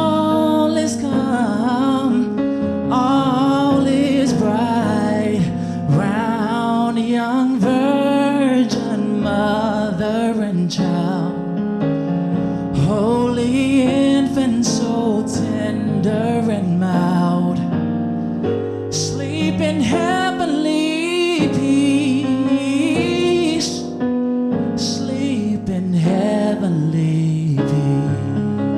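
A solo singer with piano accompaniment, performing a slow Christmas song in long held, ornamented notes with vibrato and vocal runs.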